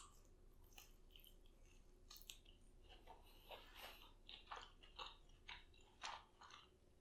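Faint close-up chewing of a Cheeto-crusted fried chicken wing, with soft crunches about once or twice a second that become more regular after the first couple of seconds.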